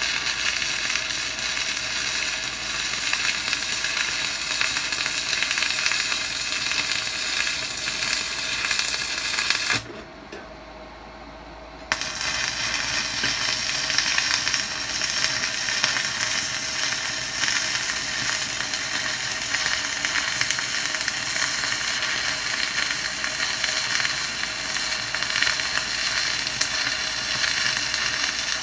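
Stick (MMA) welding arc from a Weldinger EW 140 Mini inverter at 65 A, burning a 2 mm electrode on 3 mm steel: a steady crackling sizzle. The arc breaks off for about two seconds, about ten seconds in, then strikes up again.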